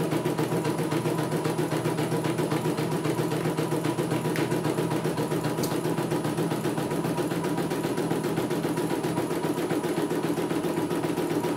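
CNY E900 portable computerized embroidery machine stitching a design, its needle running in a fast, steady, even rhythm.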